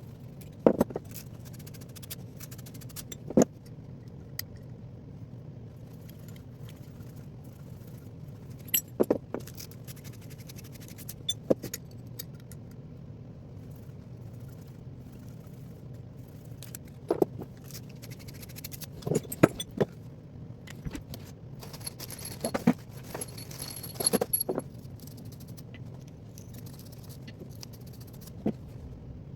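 Tools and metal parts being handled: irregular sharp clinks and knocks, singly or in small clusters, over a steady low hum, with a brief metallic jingle about three-quarters of the way through.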